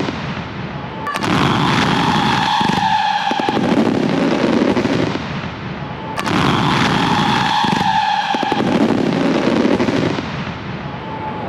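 Fireworks going off in a dense barrage of bangs and crackling, in two loud waves about five seconds apart.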